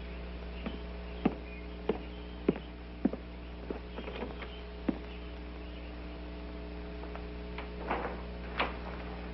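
Footsteps on wooden boards, sharp and evenly spaced about every half second at first, then more irregular and sparse, over a steady electrical mains hum.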